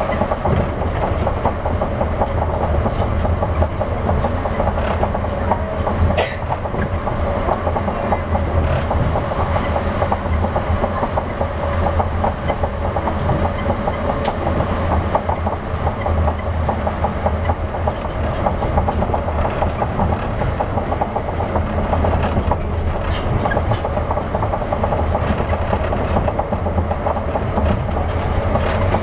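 Running sound inside an Osaka 200 series New Tram, a rubber-tyred automated guideway train, cruising at steady speed: a steady low rumble with a steady hum and a few faint clicks.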